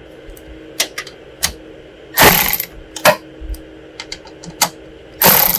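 A cordless Milwaukee driver with a 7/32-inch socket on a quarter-inch extension runs in two short bursts, about two seconds in and again near the end, backing out grille-shell bolts. Light clicks of the socket and tools being handled fall between the bursts.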